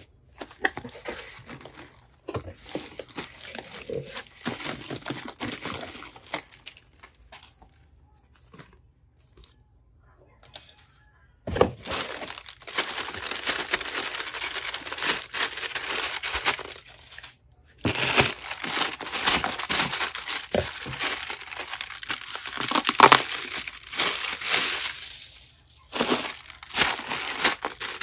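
Cardboard shipping box being opened by hand, its flaps rubbing and scraping, and inflated plastic air-pillow packing crinkling as it is handled and lifted out. There is a lull of a few seconds about a third of the way in.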